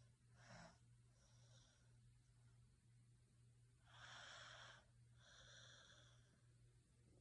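A sleeping person's faint, wheezy snoring breaths: a short breath near the start, then a louder in-breath about four seconds in followed by a softer out-breath.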